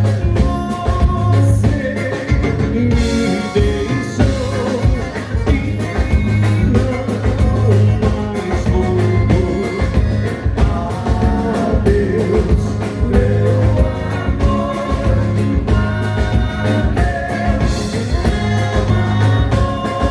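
Live gaúcho dance band playing a vanerão, with accordion, bass and drums keeping a steady, driving dance beat.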